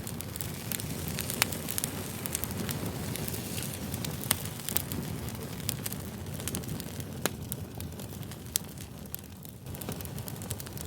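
Wood campfire burning, with a steady low rush of flames and frequent irregular sharp crackles and pops, a few of them louder.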